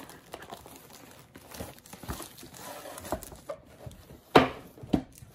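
Crinkling of a clear plastic sleeve as a rolled diamond-painting canvas is handled, with scattered light taps. A sharp knock about four seconds in is the loudest sound, followed by a smaller one half a second later.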